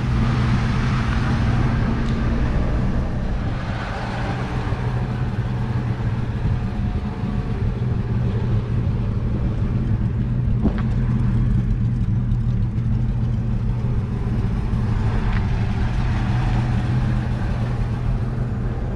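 1953 Chevrolet panel truck's inline six-cylinder engine idling steadily, heard from beside the truck.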